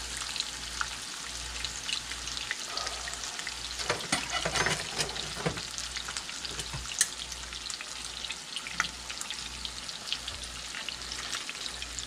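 Seasoned mangrove snapper fillets frying in hot olive oil in a nonstick skillet: a steady sizzle with frequent sharp pops and crackles, busier for a moment about four seconds in.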